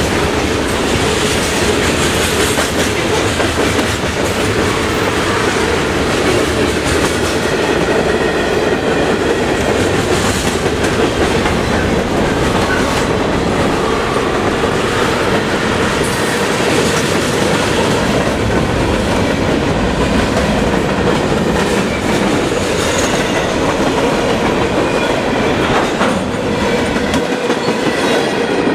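Freight train's covered hoppers and tank cars rolling past close by: a steady rumble of steel wheels on rail with clickety-clack over the rail joints. The lowest rumble falls away near the end as the last car clears.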